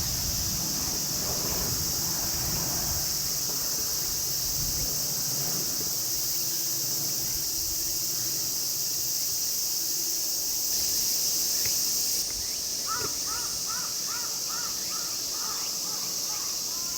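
Cicadas droning in a steady high-pitched hiss, with a low rumble under it for the first few seconds. Near the end a bird calls in a quick run of short, evenly spaced notes.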